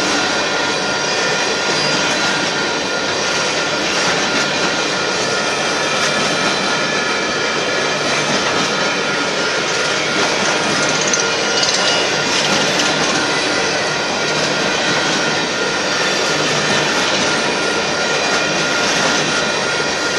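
Union Pacific coal train's coal cars rolling past a grade crossing: a loud, steady noise of steel wheels on the rails and rattling cars, with no breaks.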